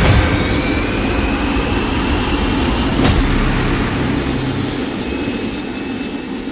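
Aircraft turbine engine noise, a loud rush with a high whine slowly rising in pitch. About three seconds in the sound changes abruptly, then it slowly fades.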